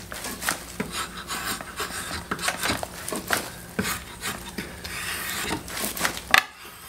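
Drawknife shaving a green red oak peg held in a spoon mule: a run of quick, short scraping cuts as curls of wood come off. A sharper click about six and a half seconds in.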